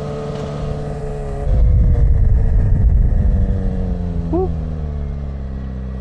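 Suzuki GSX-R sport bike engine running under the rider while riding. It holds steady, grows louder with a heavy low rumble from about a second and a half in, then eases off again.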